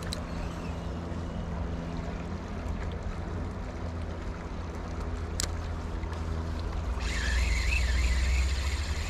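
Steady rush of river water with a low rumble. About seven seconds in it grows louder and a wavering high-pitched sound joins for about two seconds; a single sharp click comes just before.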